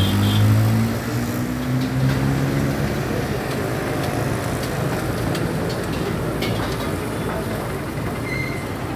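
A vehicle engine runs close by for about the first second, its pitch rising slightly, then gives way to the steady rumble of street traffic with a few faint clicks.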